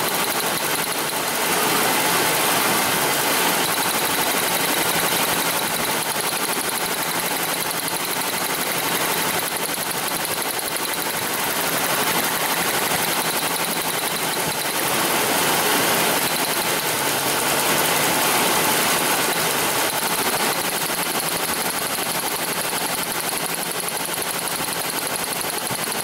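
Mazda B3000's 3.0-litre V6 idling in gear under load with a skipping misfire, while plug wires are shorted out one cylinder at a time. The lean-running miss is one the mechanic later thinks comes from plug wires put on out of firing order.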